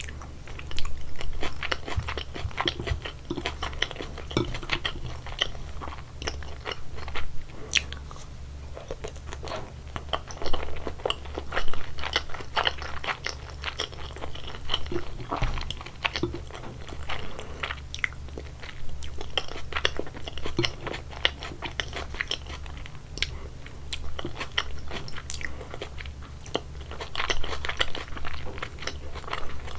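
Close-miked chewing and biting of sushi: irregular wet, crunchy mouth sounds, over a steady low hum.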